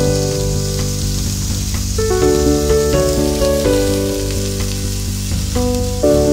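Meat and a sausage sizzling in a ridged stovetop grill pan, a steady frying hiss. Background music of sustained notes that change every half second or so plays over it.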